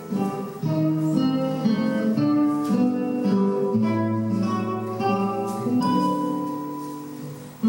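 Background music: an acoustic guitar playing a melody of plucked notes and chords, the notes changing about every half second.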